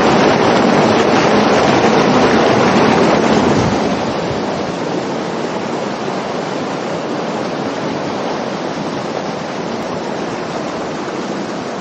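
Muddy floodwater rushing out of a concrete culvert pipe as a loud, steady rush. It drops to a softer, steady rush about four seconds in.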